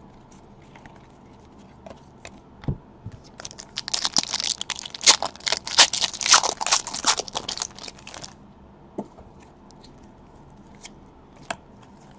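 Foil trading-card pack wrapper being torn open and crinkled: a dense crackling stretch of about four seconds in the middle, with a few scattered clicks of cards and packs being handled before and after.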